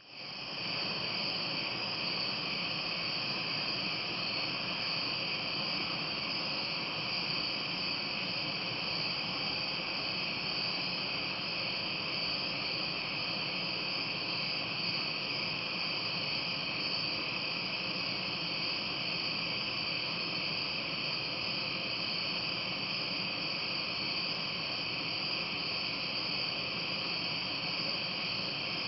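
Chorus of night-singing insects: a steady, continuous high-pitched shrilling with no breaks.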